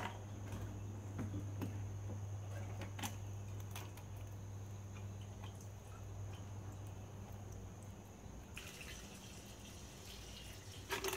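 Diesel fuel dripping, then draining in a steady stream about eight and a half seconds in, off a fuel pump and sending unit assembly as it is lifted out of the fuel tank. A few light clicks of the assembly being handled, over a steady low hum.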